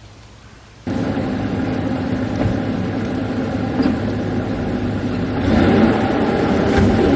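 Half-ton pickup truck's engine, loud and steady, starting suddenly about a second in and revving harder about five and a half seconds in, under load as it pulls a hung-up tree off its stump.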